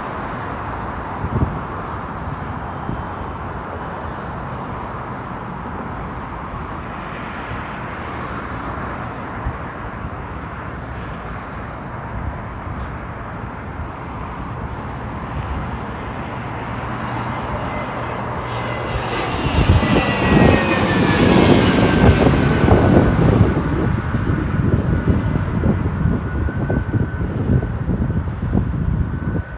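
Jet airliner's engines: a steady rushing noise that swells into a louder rumble about two-thirds of the way in. A high whine falls in pitch over a few seconds, then holds steady.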